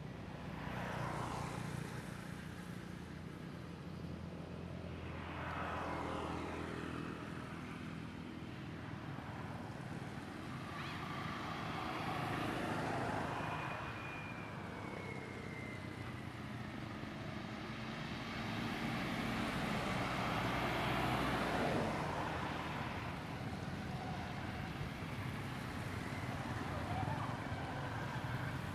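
Road traffic: vehicles passing one after another, each a swell of noise rising and fading over a few seconds, over a steady low rumble.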